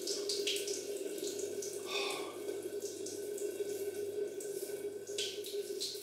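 Bathroom tap left running into the sink, a steady splash with a constant hum, too noisy. A few short scrapes of a safety razor being drawn across the cheek.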